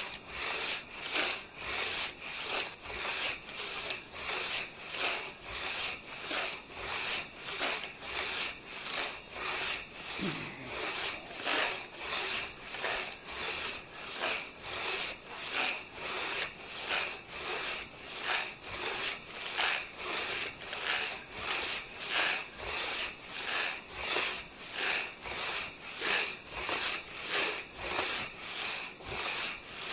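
Hand saw cutting through a downed maple log, in steady back-and-forth strokes of about one and a half a second.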